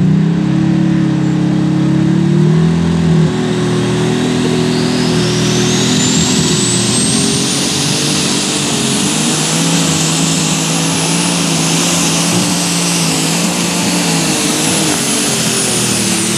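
Turbocharged Light Super Stock pulling tractor engine running flat out under load as it drags the weight-transfer sled down the track. A high turbo whine climbs over several seconds, then holds high over the engine note.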